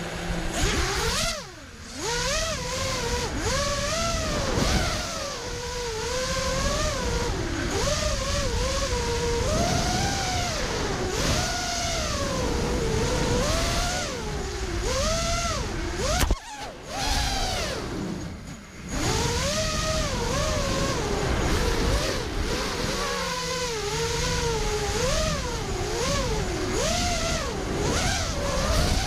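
A 5-inch racing quadcopter's electric motors whining, their pitch rising and falling constantly with the throttle, with a few brief dips where the throttle is cut, the longest about two thirds of the way through.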